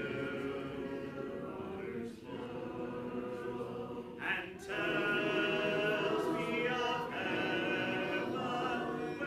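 A church congregation singing a hymn in four-part harmony, with short breath pauses between phrases. The singing swells louder about halfway through.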